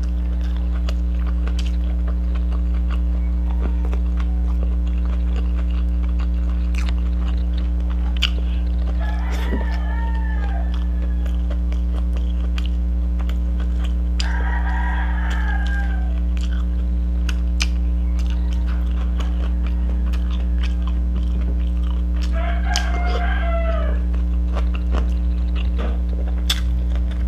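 A rooster crows three times in the background: about a third of the way in, around the middle, and near the end, each crow lasting a second or so. Under it runs a steady low hum, with scattered soft clicks and smacks of eating by hand.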